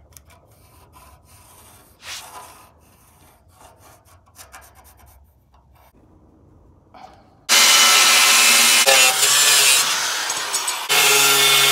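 Faint scratching and handling of steel for the first several seconds, then, about seven and a half seconds in, an angle grinder with a thin cut-off wheel cuts through 1/8-inch steel flat stock: a loud, steady grinding that eases slightly and comes back with a humming tone near the end.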